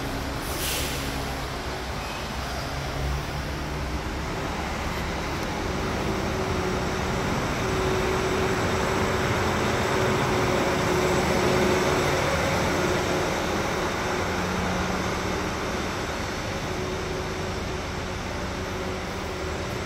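Steady mechanical running noise with a faint low hum, growing a little louder in the middle and easing off again.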